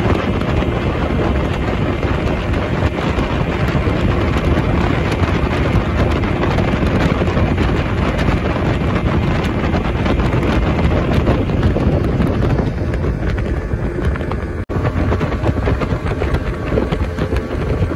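Small speedboat under way: its engine runs steadily under heavy wind noise on the microphone. The sound drops out for an instant about fifteen seconds in.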